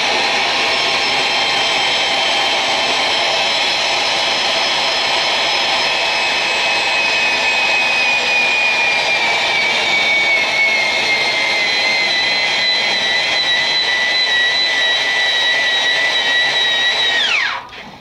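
A drill spinning a tube roller inside a steel boiler tube end, expanding the tube to seal it into the tube sheet: a steady high whine. Its pitch slides slowly down through the middle and holds lower, and it stops abruptly near the end.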